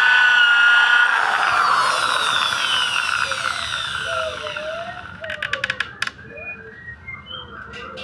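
Small electric drill whining steadily, then spinning down with a falling pitch over a few seconds after drilling holes in bamboo. A quick run of clicks comes about five seconds in, followed by birds calling faintly.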